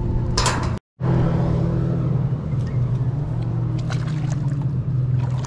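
A steady low motor drone, after a brief cut to silence about a second in.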